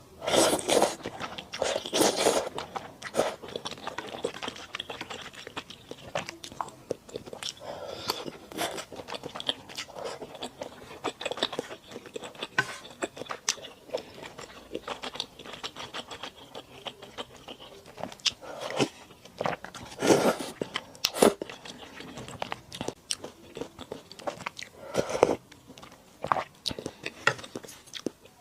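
Close-miked eating of malatang with thick rice noodles: a string of crunchy bites and wet chewing clicks, with a few louder bites scattered through.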